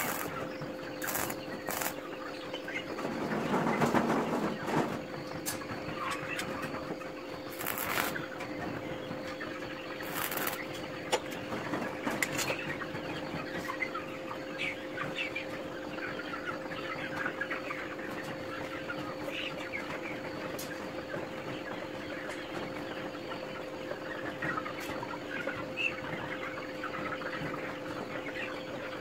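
Chickens clucking over a steady hum. A few seconds in there is a short burst of arc-welding crackle on the steel-rod frame, and a few sharp clicks follow over the next several seconds.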